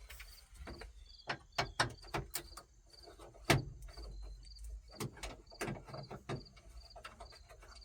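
Scattered clicks and knocks of hand work on a square-body pickup's dash trim, the loudest knock about halfway through. Crickets chirp steadily about twice a second.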